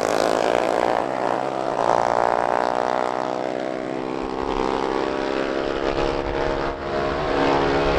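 Racing mini bikes' small single-cylinder engines running at full throttle, a high engine whine that climbs in pitch about two seconds in and then drops away. A lower rumble joins about halfway through.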